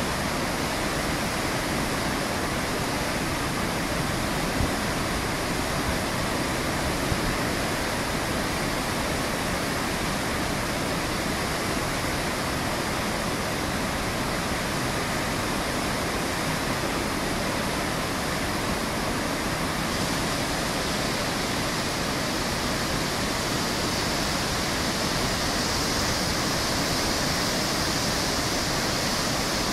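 Water from a small dam release rushing down a concrete spillway and churning into white foam: a steady, even rush of water, a little brighter and hissier in the last third.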